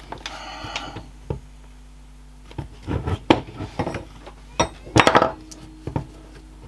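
Clicks and metal knocks from handling a metal pocket hole jig: its toggle clamp being worked and the drill guide block picked up. The knocks come in a cluster about three seconds in and are loudest about five seconds in.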